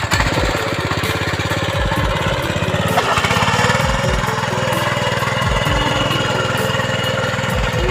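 Petrol-engined mini tiller (small hand-tractor plough) running steadily, its small engine firing in a fast, even beat.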